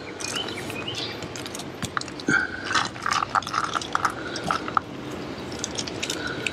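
Paintbrush dabbing and stroking wet white sealant over a fabric fleece strip on a skylight frame: a run of short wet clicks and squishes. A few short high-pitched squeaks come a little after two seconds in, the loudest part.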